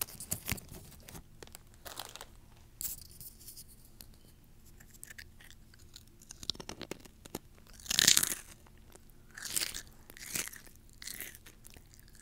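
Close-up crunching and chewing of crisp chips, in irregular bursts, loudest about eight seconds in.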